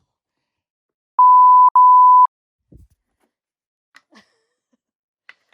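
Electronic beep: a steady pure tone at about 1 kHz sounding twice, back to back, for about a second in all, over dead silence. A few faint clicks follow.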